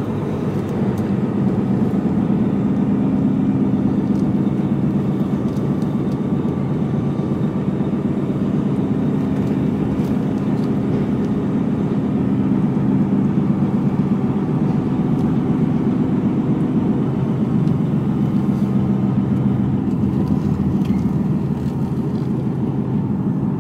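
HGV tractor unit's diesel engine running steadily under way, heard inside the cab, over a bed of road noise. The engine note shifts slightly in pitch a few times.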